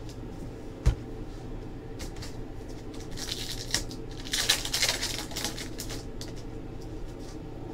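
Trading cards and packaging being handled: a single thump about a second in, then a few seconds of rustling and crinkling near the middle, over a steady low hum.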